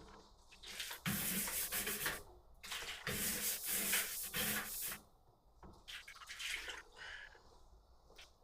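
Liquid pouring and splashing in bursts: two longer gushes with a pause between, then a shorter splash.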